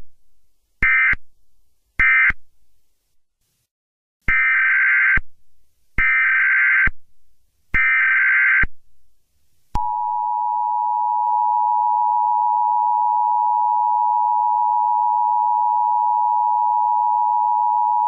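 Emergency Alert System SAME tones: short screeching digital data bursts ending the previous alert (end-of-message code), then three longer data bursts, the header announcing the next alert. About ten seconds in comes the loud, steady two-tone EAS Attention Signal (853 and 960 Hz), which holds to the end.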